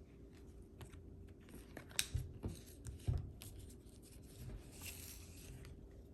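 Trading cards being handled as a pack is gone through, making faint rustles and light clicks, with a sharper click about two seconds in and another about three seconds in.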